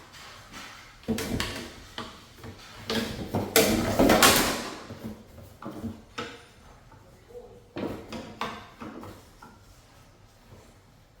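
Ceiling fan parts being handled during assembly: a string of knocks, scrapes and rustles, the loudest a burst of scraping about three and a half to four and a half seconds in.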